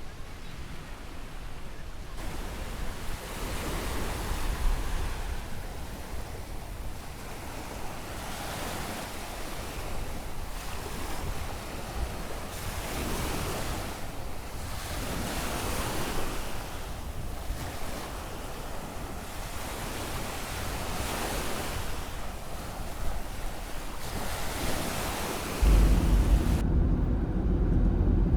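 Surf breaking on a beach, the wash swelling and fading every few seconds, with wind rumbling on the microphone. About 26 s in it cuts abruptly to a louder, steady low rumble.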